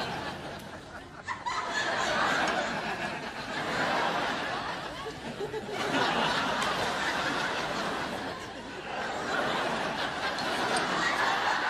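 Sitcom studio audience laughing, the laughter rising and falling in several waves.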